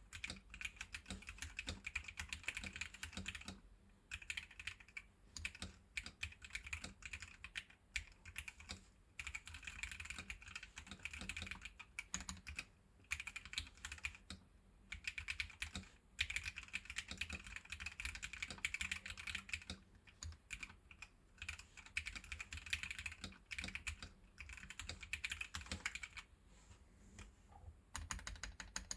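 Caseless mechanical keyboard, mounted on standoffs with rubber O-rings, being typed on: a fast clatter of key clicks in runs of a few seconds with short pauses between.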